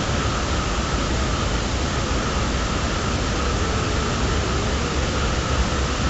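Rain falling steadily: a dense, even hiss. A faint unbroken high tone runs underneath.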